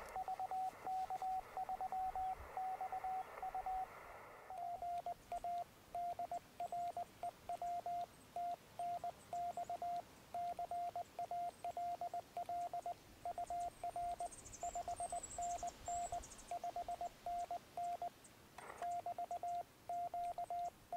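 Morse code (CW) from a Yaesu FT-817 transceiver: a single steady beep near 700 Hz keyed in dots and dashes, spelling out "QTH MT TENNENT", over a radio hiss that drops away about four seconds in.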